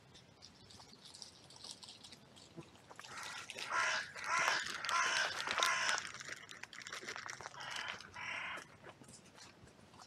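Crows cawing: a loud run of calls through the middle, then a shorter burst near the end.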